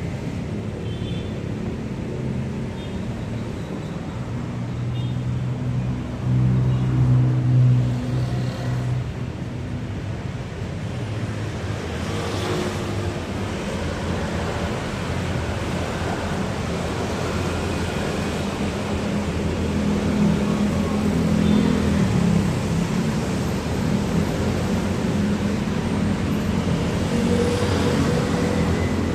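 BFT Deimos Ultra BT 24 V sliding-gate operator running, a low hum as it drives the gate along its gear rack, over steady outdoor traffic noise. The hum swells about 6 s in and again about 20 s in.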